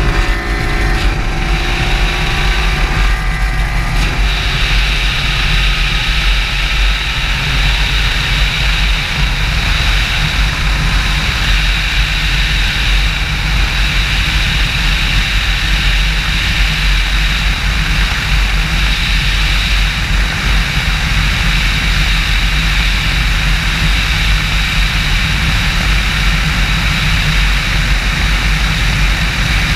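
Triton bass boat's outboard motor running at full throttle, its pitch climbing over the first few seconds as the boat accelerates, then holding steady at high speed under a heavy rush of wind over the open cockpit.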